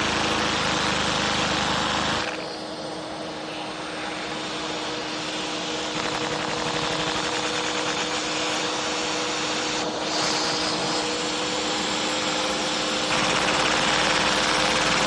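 Small supercharged turbine engine running: a rushing noise with a steady whine. The low rumble drops away about two seconds in, and the sound swells again near the end.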